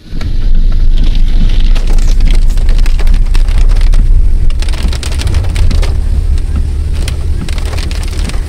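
Heavy rain drumming on a moving car's roof and windscreen, heard from inside the cabin, as a dense patter over the car's steady low road rumble.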